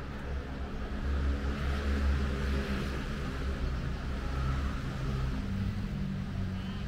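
Low rumble of a passing motor vehicle, swelling about a second in and then easing, over steady traffic hiss.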